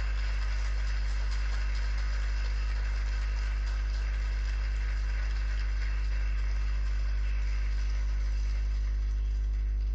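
Applause: many hands clapping steadily, fading out near the end, over a constant low electrical hum.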